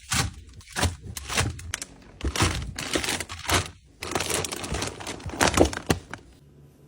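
Plastic packaging crinkling and containers clicking and knocking as groceries are stocked into a refrigerator, in a quick run of handling sounds that stops about six seconds in.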